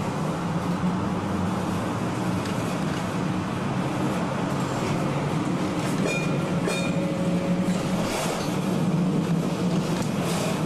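Vintage W2-class electric tram rolling steadily along street track, heard from the front of the car: a constant low hum of the motors and wheels on the rails, with a few light clicks. A couple of brief higher-pitched notes sound about six seconds in.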